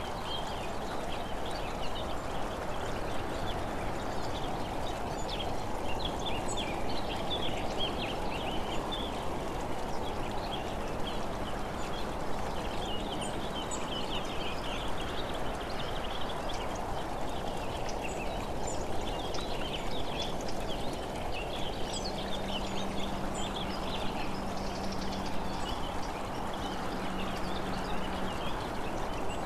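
Steady rush of wind and road noise while travelling along a country road, with birds chirping throughout. A faint low steady hum joins about two-thirds of the way in.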